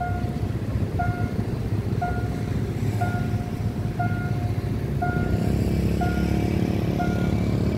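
Railway level-crossing warning alarm beeping about once a second, a short two-tone electronic beep, over a low rumble of engines. About five seconds in, a steady engine hum grows a little stronger.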